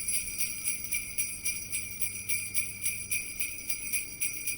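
Sleigh bells jingling in a steady, quick rhythm.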